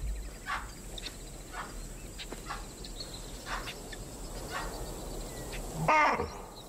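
Wild animals' alarm calls: short, sharp calls about once a second, then a louder call falling in pitch near the end, warning that a stalking lion has been spotted.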